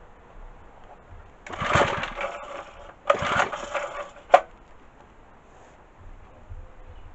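Pull-starter of a small petrol engine yanked twice, each pull about a second of whirring and rattling as the engine turns over without catching, followed by a sharp click.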